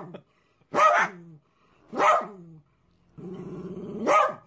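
Umbrella cockatoo imitating a dog: two short barks about a second apart, then a longer growl that ends in a rising bark near the end.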